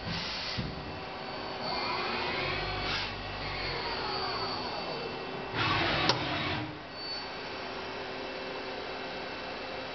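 KIA SKT 15LMS CNC lathe running, with a steady mechanical hum and a whine that rises and then falls in pitch as the machine's axes or spindle speed up and slow down. About halfway through there is a louder second-long hiss with a sharp click in it.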